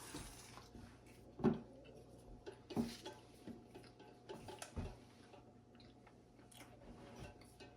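Quiet chewing of soft snack cakes, with a few short soft knocks and clicks about a second and a half, three and four and a half seconds in, over a faint steady hum.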